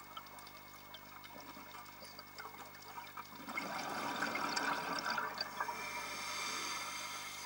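Underwater scuba sound: faint crackling, then about three and a half seconds in a louder bubbling rush of a diver's exhaled breath from the regulator.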